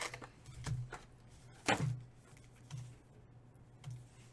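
Foil trading-card packs rustling and crinkling as they are lifted out of the box and handled, with one louder knock a little under two seconds in. A steady low hum runs underneath.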